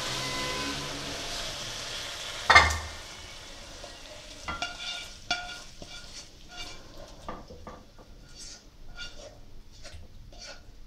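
Sizzling from the hot wok, then one loud clank about two and a half seconds in as the pan is taken off the burner. After that, a spatula taps and scrapes along the non-stick wok as the food slides into a glass dish, a string of short clicks and scrapes.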